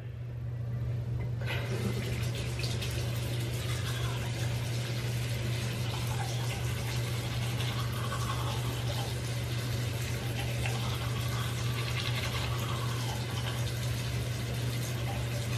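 Bathroom sink tap running steadily, turned on about a second and a half in, over a steady low hum.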